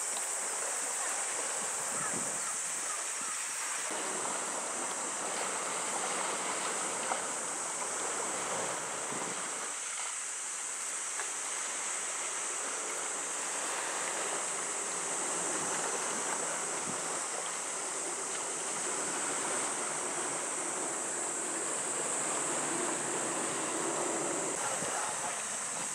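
Wind and small waves on open water: a steady, rushing outdoor hiss with a constant high-pitched band above it.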